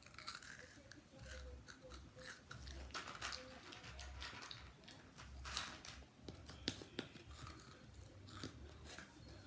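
Close-up chewing and crunching of food into the microphone, the jaw working about once a second, with a few sharper crunches about two-thirds of the way through.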